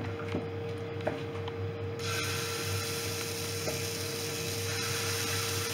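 Dosa batter hitting a hot non-stick tawa, starting a steady sizzling hiss about two seconds in that carries on. Before it come a few light clicks of the ladle in the batter bowl, over a steady hum.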